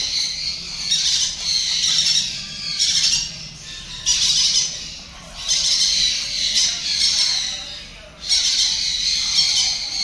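African grey parrot chicks giving harsh, rasping begging calls in repeated long bursts with short breaks, as they wait to be hand-fed.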